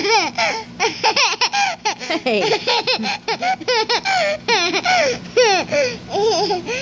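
Toddler laughing: a long run of short, high-pitched giggles.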